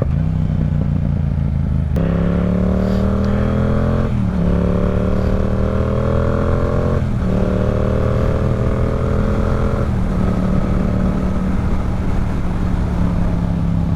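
Yamaha R7's parallel-twin engine, steady for about two seconds, then accelerating hard through the gears. The pitch climbs and drops sharply at upshifts about four and seven seconds in, then holds fairly level from about ten seconds in.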